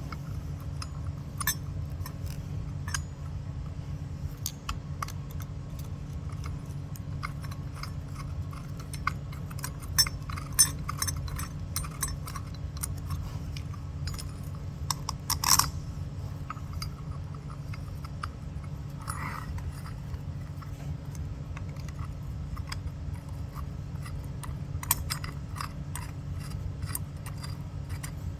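Metal parts of an Anson 207 clinking and clicking as they are handled and fitted together, with a few sharper knocks about ten and fifteen seconds in, over a steady low hum.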